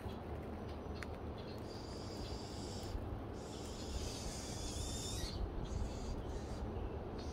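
Outdoor garden ambience: a low rumble of wind on the phone microphone, with a high hissing sound twice, for a second or two each, from about two to five seconds in.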